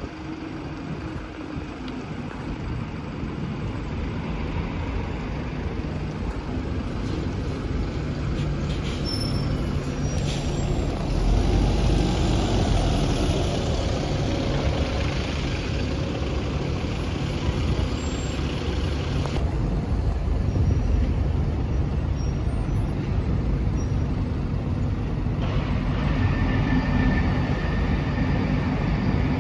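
Diesel single-decker buses running and manoeuvring close by. Engine rumble builds from the start and is loudest from about 11 seconds in, as a bus drives past close up, then continues steadily as another bus moves off.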